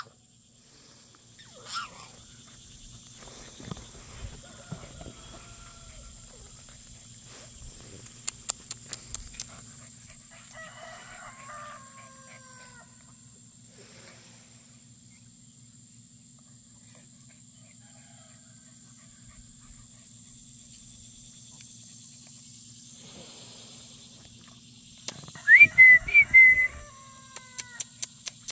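Free-range chickens and turkeys calling now and then as they forage, with a loud rising high-pitched call near the end, over a steady high-pitched drone.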